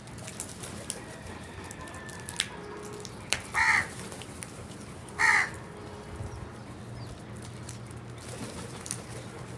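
A crow cawing twice, two short harsh calls about a second and a half apart, over scattered faint taps and clicks.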